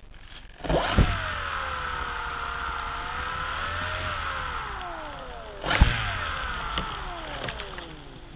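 Electric motor and propeller of a FunCub RC plane throttling up with a sharp knock about a second in. It holds a steady whine, then winds down in pitch. A second short burst with another knock comes near the end of the first third before the last, and the whine falls away again.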